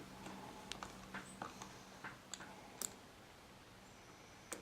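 Faint, scattered small clicks and taps of the screws in an extension-cord replacement plug's housing being tightened down, a few in the first three seconds and one more near the end.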